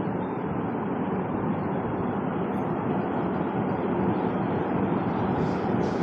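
56-inch Sapphire FM-1319DC ceiling fan running steadily: a continuous whoosh of air from the blades over a low motor hum.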